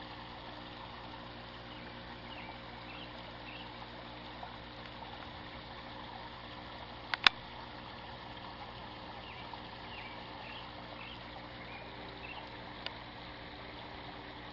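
Steady trickle and splash of moving water in a backyard koi pond. A sharp double click about seven seconds in stands out above it, with a smaller click near the end.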